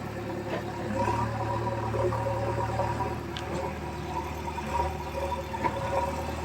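Diesel engine of a JCB 3DX backhoe loader running steadily at low revs, with a few light clanks.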